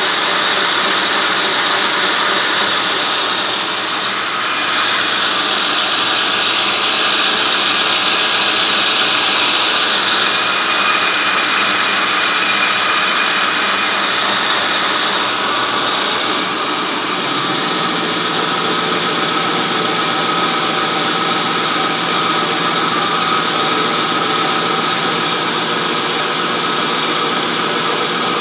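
A 2003 Mercury Grand Marquis 4.6-litre single-cam V8 running, with a steady high-pitched whine or whistle from the front accessory drive belt and pulleys. The tone of the whine shifts about halfway through. It is a cold-start whine that the owner hears only in the first 30 seconds after starting below about 30°F, and its cause is undiagnosed.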